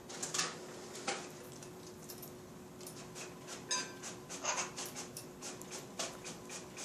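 Noble macaw eating from a stainless steel bowl: irregular clicks and crunches of beak on food and metal, with a few sharper clinks about halfway through.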